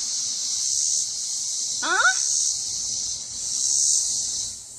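A chorus of insects: a steady, high-pitched chirring hiss that swells and fades about every second and a half.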